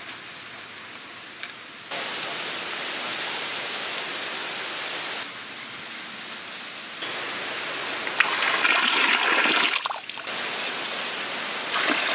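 Water pouring and splashing into a shallow cement pond. The rushing noise jumps up and down in level at a few abrupt cuts, and is loudest from about eight seconds in and again near the end.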